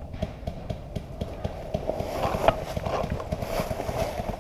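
Footsteps on dry leaf litter: a run of quick, irregular low thuds with the rustle and crunch of leaves, louder in the middle of the stretch.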